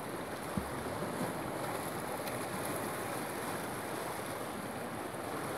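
Lake Huron waves washing steadily against a pier, with wind on the microphone. A small knock about half a second in.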